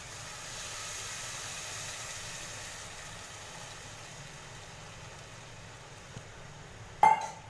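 Hot boiled water poured into a pot of okra curry: a steady hiss of pouring and sizzling that swells early and slowly fades. A short, sharp knock with a brief ring near the end.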